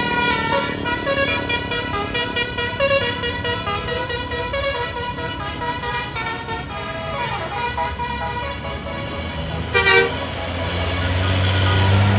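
A bus's multi-tone musical air horn (telolet/basuri horn) playing a stepped tune, note after note. About ten seconds in there is a short loud blast, and then a low engine rumble swells near the end.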